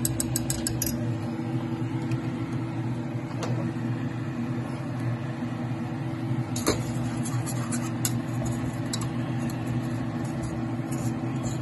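A whisk and a spoon clinking and scraping against a metal saucepan as thick gravy is stirred. There are a few quick clinks at the start, single ones now and then, and more near the end, all over a steady low hum.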